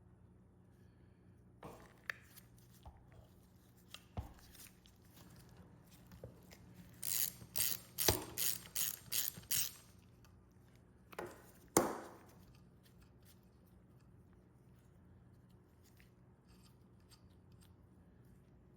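Metal grinder parts being worked by hand: scattered clicks and knocks, then a quick run of about eight rasping strokes at about three a second, and two sharp clacks a few seconds in.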